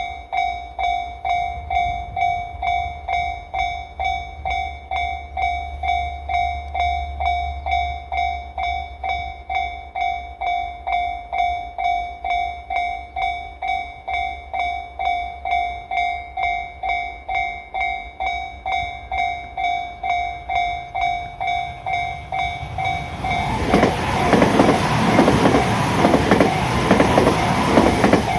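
Electronic level-crossing alarm ringing, a pulsing bell tone at about two strokes a second. About 23 seconds in, a Tobu Skytree Line electric train reaches the crossing and passes through, its running noise and wheel clatter over the rail joints louder than the bell, which keeps ringing.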